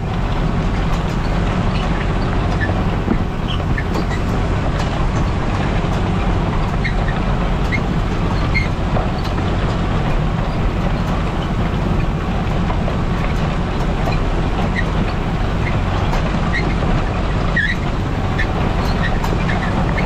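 Tractor engine running steadily under load while pulling a plough, a constant loud low rumble. Short high chirps are scattered through it.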